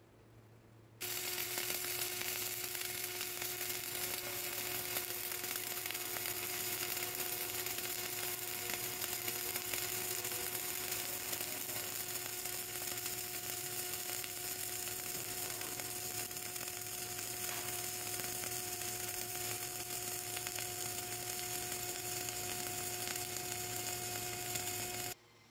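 Flux-cored arc welding arc sizzling and crackling steadily, struck suddenly about a second in and broken off just before the end, with a steady hum underneath.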